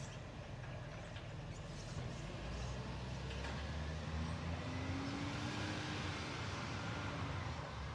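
Garbage truck's diesel engine running, a low steady drone that grows a little louder a few seconds in, with a faint rising whine near the middle.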